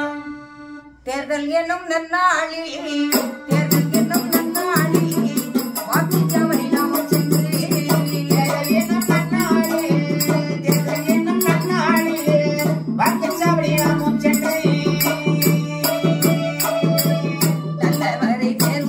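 Tamil folk song: a woman and a man singing in turn. About three and a half seconds in, a steady rhythm of small hand cymbals and a held low drone come in under the voices.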